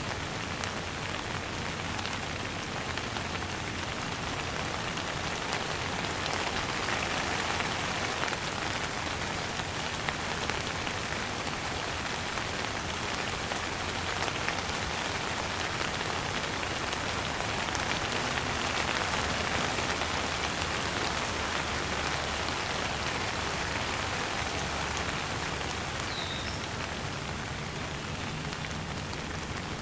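Steady rain falling on a surface, a dense even patter of drops that swells a little twice before easing back.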